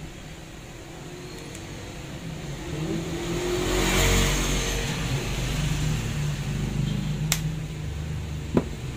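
A passing vehicle, its noise swelling to a peak about four seconds in and then fading, over a steady low hum. Two sharp clicks near the end as the parts of the rotary hammer are handled.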